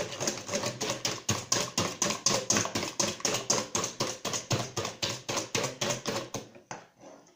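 Wire whisk beating eggs and sugar in a stainless steel bowl, clattering against the metal in quick regular strokes, about four or five a second. The whisking stops about six and a half seconds in.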